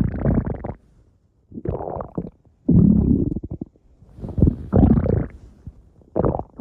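Stomach growling: five irregular rumbling bursts, each under a second to about a second long, with short quiet gaps between them.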